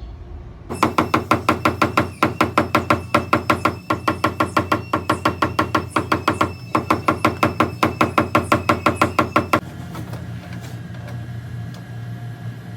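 Rapid tapping on car door sheet metal with a paintless-dent-repair hammer and knockdown tool, about five sharp ringing taps a second in three runs with two short breaks, stopping about ten seconds in.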